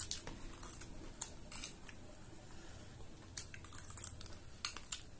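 Small metal spoons scraping and clicking against plates of crunchy chatpate, with faint chewing; a scatter of short, light clicks.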